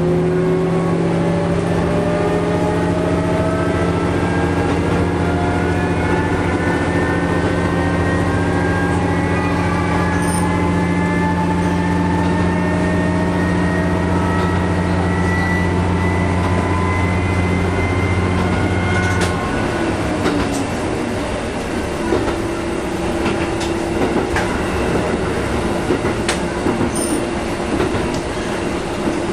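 Diesel railcar heard from the driver's cab, its engine working hard with a rising drive whine as the train accelerates. About two-thirds of the way through, the engine drops back and the railcar coasts. The wheels then click over rail joints, with a steadier running hum.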